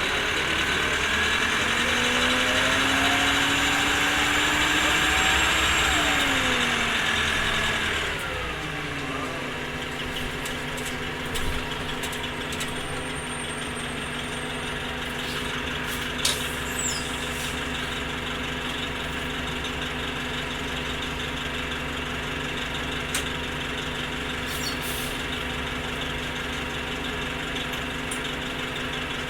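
Orion V transit bus's diesel engine and drivetrain under way with a rising whine, which falls away as the bus slows; about eight seconds in it settles to a steady idle, with a few short clicks and knocks while it idles.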